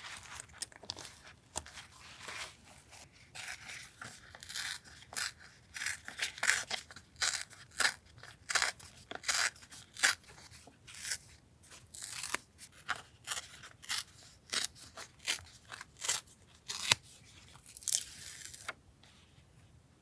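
Scissors cutting paper for a journal collage: a run of short, crisp snips at an irregular pace, stopping shortly before the end.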